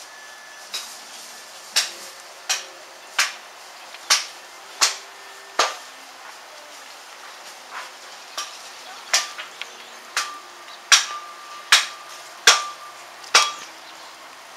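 Sharp knocks of a utensil striking a hard surface during food preparation, about one every three-quarters of a second in two runs, with a pause of about two seconds in the middle.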